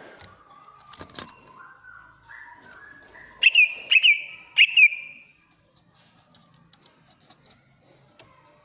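Cucak ijo (green leafbird) singing a shrill whistled phrase. A string of clear notes climbs step by step in pitch, then three loud, piercing notes about half a second apart end in a briefly held whistle.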